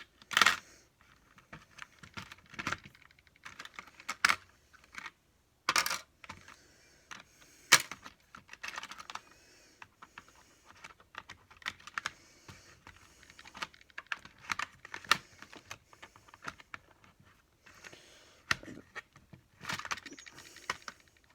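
Terminal tackle box and packets of fishing hooks being handled: irregular small clicks, taps and light rattles of plastic and metal.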